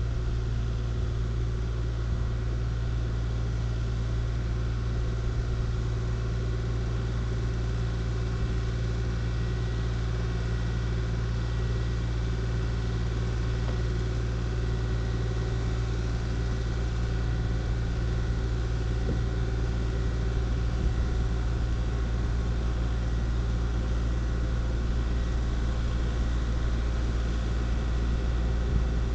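Diesel engine of a compact excavator or track loader running steadily, with a constant low hum and no revving.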